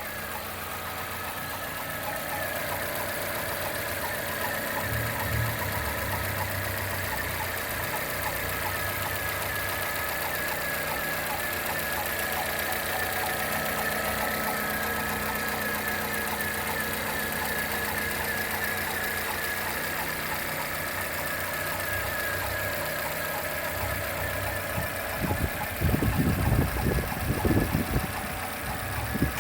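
Chevrolet Corsa Classic / Celta four-cylinder engine idling with a fast, light ticking or knocking noise riding on the steady idle: the strange engine noise whose cause the owner is asking about. Near the end, a few heavy low thumps.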